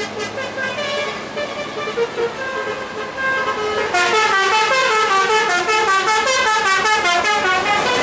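Bus 'telolet' multi-tone air horn playing a tune of stepped notes. About four seconds in it gets louder and switches to quick alternating notes.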